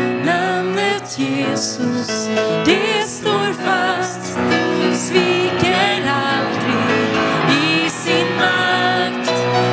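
A woman sings a worship song into a microphone, accompanied by grand piano.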